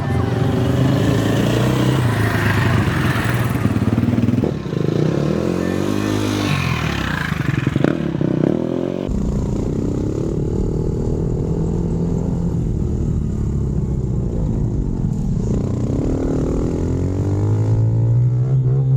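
Dirt bike engine revving up and down as it rides, pitch rising and falling through gear changes. About halfway through the sound switches abruptly to a steadier engine note, which rises again a couple of times near the end.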